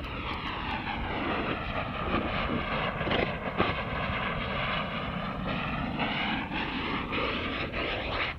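Exhaust roar of an experimental 6-inch Q-class rocket motor heard from the ground as the rocket climbs away. It is a steady rushing with a few sharp crackles, and its tone slowly sweeps. The sound cuts off abruptly at the end.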